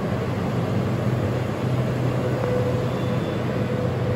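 Steady vehicle rumble with a low hum, and a faint high whine joining about two seconds in.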